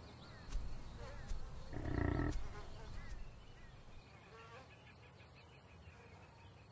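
Wildlife ambience: small birds chirping, with one louder, rough animal call about two seconds in.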